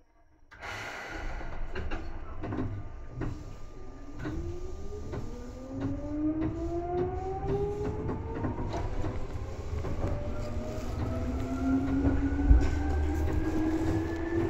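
Seibu 2000 series electric train pulling away. A clunk about half a second in as the traction circuit switches on, then the traction motors and gears whine, with several tones rising steadily in pitch as the train accelerates. Regular wheel clicks over rail joints run through it, with a louder knock near the end.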